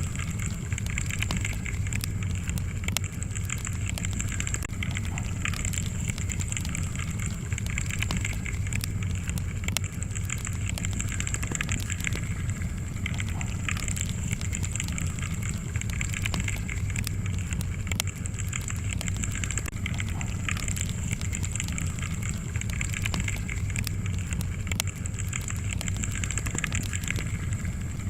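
Wood fire crackling in a fireplace: frequent small sharp pops and snaps over a steady low rumble and hiss.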